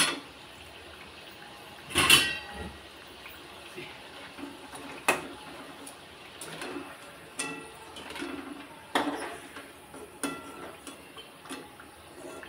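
A perforated metal skimmer clinks and scrapes against a metal kadai as chakli are turned and lifted out of hot frying oil, with a low steady sizzle of the oil underneath. There are several sharp clinks, the loudest about two seconds in.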